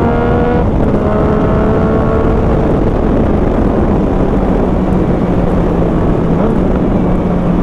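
Yamaha MT motorcycle's engine bellowing through a Jeskap GP2 aftermarket exhaust as it accelerates. The pitch climbs, drops at a gear change just under a second in, and climbs again. It then settles into a lower, steadier drone, with a rushing noise underneath.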